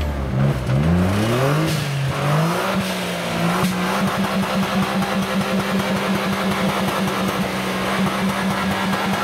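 Engine of a 4x4 off-road vehicle under throttle: its pitch climbs in a few rising sweeps over the first couple of seconds, then holds steady with a regular pulsing throb as it works on the course.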